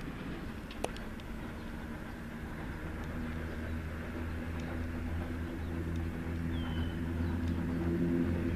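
Pt47 steam locomotive approaching with its train: a steady low rumble and hum that slowly grows louder. A single sharp click comes about a second in, and a short bird chirp near the end.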